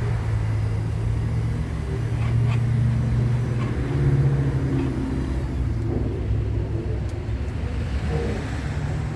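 A steady low mechanical hum and rumble, like a running motor, with a few faint knocks over it.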